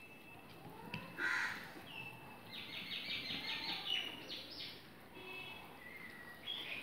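Birds calling: a harsh call about a second in, then a quick run of short repeated notes, and a few more short calls later.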